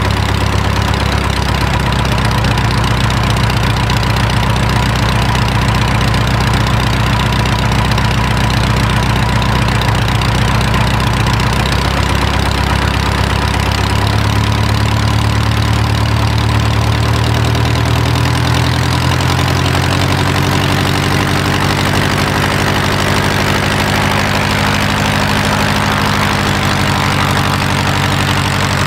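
Avid Flyer kit plane's engine idling, propeller turning, with small shifts in pitch a few times along the way.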